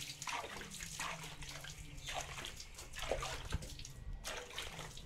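Hands scrubbing a wet dog's coat during a bath: irregular wet splashing and rubbing strokes, over a faint steady low hum.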